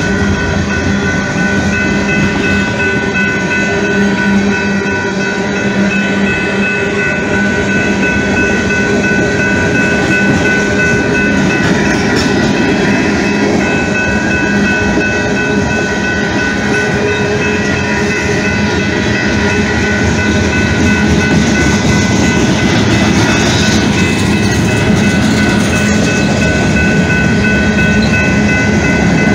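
Freight train of tank cars and covered hopper cars rolling steadily past, wheels clattering over the rail joints, with steady high-pitched ringing tones over the rumble.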